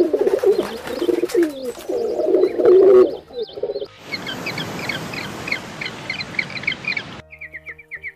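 Feral pigeons cooing for about the first four seconds. Then it cuts to busy, high-pitched chirping over a hiss, and near the end to a fast, regular run of chirps, about seven a second.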